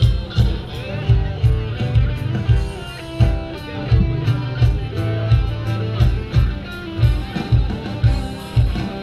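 Background music: an instrumental passage with guitar over a drum kit's steady beat, about two beats a second.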